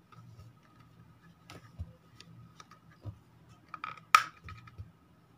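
Small plastic clicks and taps as the battery and back of an Alcatel 1 phone are handled and fitted, with one sharp plastic click about four seconds in.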